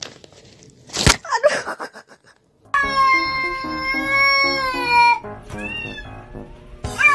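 A domestic cat yowling in long drawn-out cries: one held steady for over two seconds, then a shorter cry that rises and falls. Background music plays underneath, and a single sharp knock sounds about a second in.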